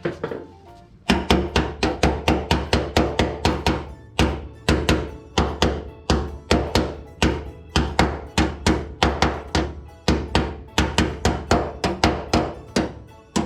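Hammer blows on a steel sheet being shaped into a side sill repair panel: rapid strikes, about three to four a second, each with a short metallic ring, with brief pauses twice.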